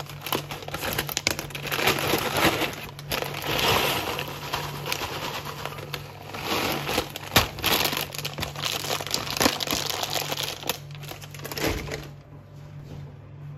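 A plastic cereal bag crinkling and rustling as cereal is poured into a ceramic bowl, with a clatter of small pieces landing. The noise dies down about a second before the end.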